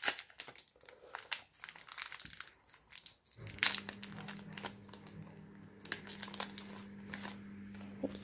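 Foil trading-card booster pack wrapper crinkling and tearing as it is pulled open by hand: a run of sharp, irregular crackles.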